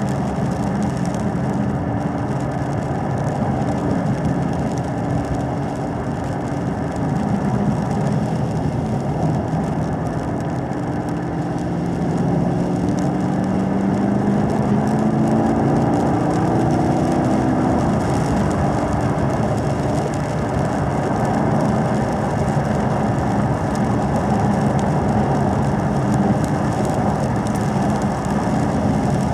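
2017 Camaro SS 1LE's 6.2-litre V8 running steadily at part throttle just under 3,000 rpm, heard from inside the cabin. About halfway through, its note rises slowly in pitch for several seconds as the car gathers speed.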